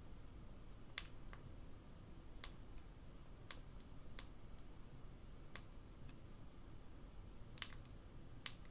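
Samsung Galaxy A5 home button being pressed over and over: about a dozen faint, sharp clicks at irregular intervals, a few in quick succession near the end. The button sometimes sticks after a press, leaving a click that lingers, a sign of a poor-quality home button.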